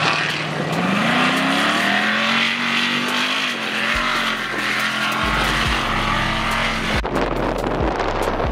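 Ultra 4 off-road race car's engine revving as it accelerates along a dirt course, its pitch climbing about a second in, then holding steady. The sound changes abruptly near the end.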